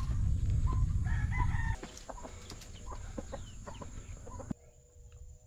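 Domestic rooster crowing briefly about a second in, over a low wind rumble on the microphone that stops soon after. Light scattered ticks follow, fitting footsteps on a dirt trail.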